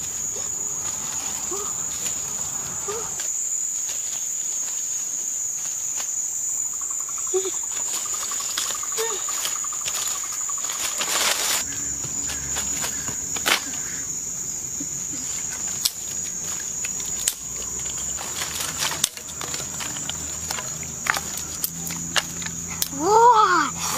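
A steady high-pitched insect drone with scattered clicks and crackles. Near the end comes a louder burst of short swooping calls.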